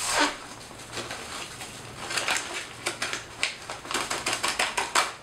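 Plastic food bag and a bouillon packet crinkling and crackling in the hands while the powder is tipped into the bag, with a quick run of sharp crackles in the second half.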